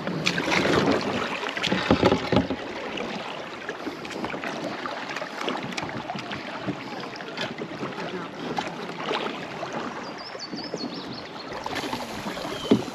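Shallow river water rushing over a gravel riffle around a kayak, with scattered knocks and clicks against the hull. It is louder for the first couple of seconds.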